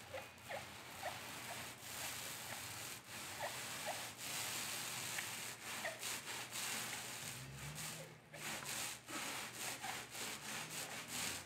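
Small 4.5-inch thick-nap paint roller loaded with primer, rolled back and forth over a steel truck fender: a steady wet, hissing rub with each stroke, pausing briefly about eight seconds in.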